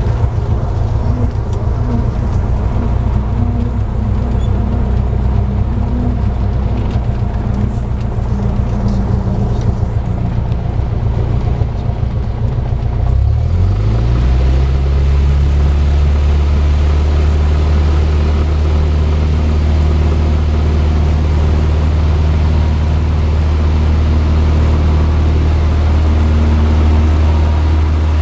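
Cessna light aircraft's piston engine and propeller heard from inside the cabin, running at low power while taxiing. About halfway through it rises in pitch and settles into a steady, louder run as the throttle opens with the plane lined up on the runway.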